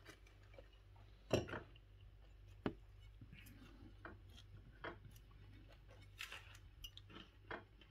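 Faint scattered clicks and knocks of cutlery against a plate during a meal, the loudest about a second and a half in.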